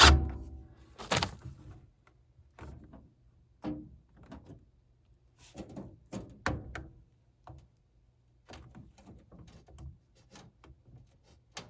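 Hand work on a gas furnace's metal parts: scattered clicks, taps and knocks of parts and a hand tool, with two louder knocks in the first second or so and lighter taps after.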